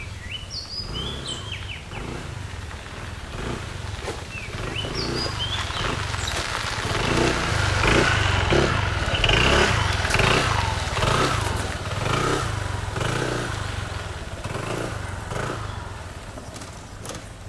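A motorbike engine with road noise, swelling to its loudest about eight to ten seconds in and fading again. A few short, high chirps sound in the first five seconds.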